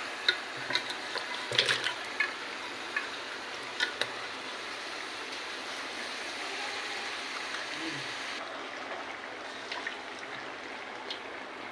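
Potatoes and peas sizzling steadily in hot oil in an aluminium pressure-cooker pan, with a few light clicks of a spoon or pieces against the pan in the first few seconds.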